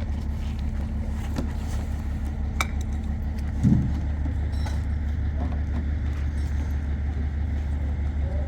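A motor engine running steadily with a low, evenly pulsing drone, and a single dull thump about three and a half seconds in.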